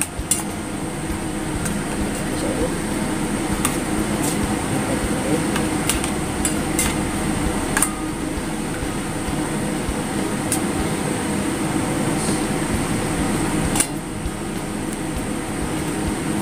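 Metal tongs clinking and scraping against a stainless steel bowl as chicken pieces are turned in wet batter. There are a few sharp clinks at irregular intervals over a steady background noise.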